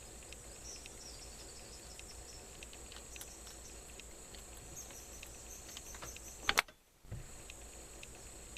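A single shot from a Martini Mk3 .22 rimfire rifle about six and a half seconds in, sharp and loud. A steady high buzz of insects carries on underneath.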